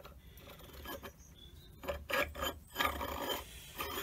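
Metal parts of a lathe apron scraping and rubbing against each other as they are handled, in a run of short irregular scrapes beginning about halfway in.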